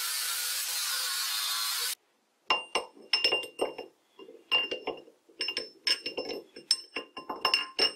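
A grinder cutting into a steel shock-absorber rod, a steady hiss that stops abruptly about two seconds in. Then the chromed rod is slid back and forth in the lathe's spindle bore and chuck, its ring and shaft knocking on the steel in a run of sharp, ringing metallic clinks as it is test-fitted.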